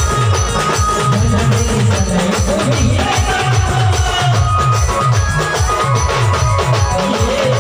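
Adivasi band music: a fast, steady beat of deep drum strokes with a melody line held over it.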